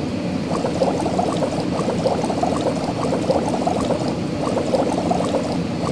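Cartoon sound effect of bubbling soap suds: a dense run of quick little pops over a hiss as foam covers the truck.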